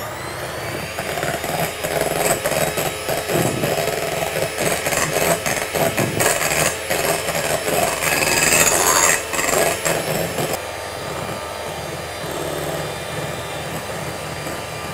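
Electric hand mixer running, its beaters whipping stiff egg whites as sugar is beaten in for meringue. The running is rough and uneven with clicks for most of the time, then steadier and a little quieter from about ten seconds in.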